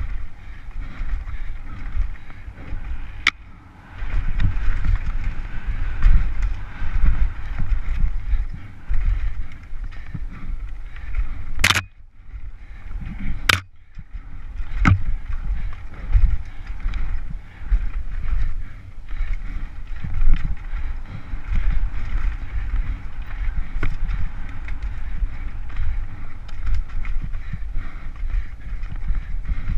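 Downhill mountain bike ridden fast over a rough, dry dirt trail, heard from a helmet camera: constant wind buffeting on the microphone with the tyres and frame rattling over roots and rocks. Sharp knocks stand out a few times, the loudest near twelve and fourteen seconds in with a brief quieter spell between them.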